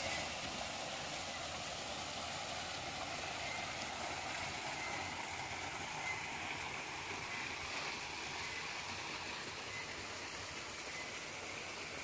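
Shallow forest stream flowing steadily over rocks, an even watery hiss.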